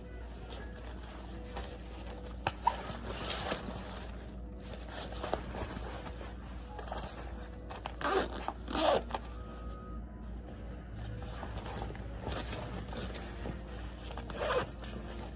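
Zippers on a soft black bag's inner pockets being pulled, with two quick zips about eight seconds in and another near the end, and rustling of the fabric between them.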